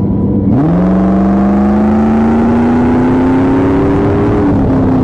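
Boss Hoss BHC-3's Chevrolet 6.2-litre V8 accelerating on the open road, heard from the rider's seat. The engine note jumps up about half a second in, climbs steadily for about four seconds, then drops back as the throttle eases or the bike shifts.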